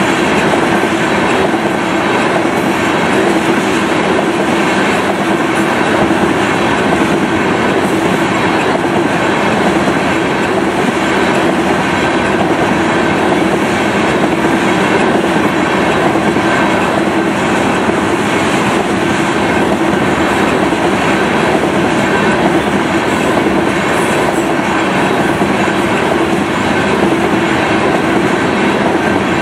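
Freight train of loaded tank cars rolling past close by: the steady, loud rumble of steel wheels on the rails, with faint steady ringing tones running through it.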